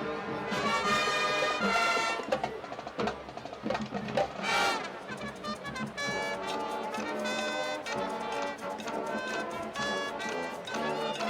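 A school marching band plays a Latin jazz number, with brass leading over percussion, and there is a crash about four and a half seconds in.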